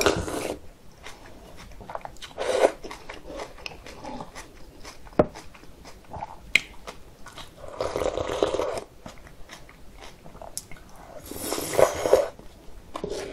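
Close-up eating sounds: a person slurping spoonfuls of thick, icy soy-milk noodle broth (kongguksu) and chewing. Three slurps of about a second each, with wet chewing and small clicks between them.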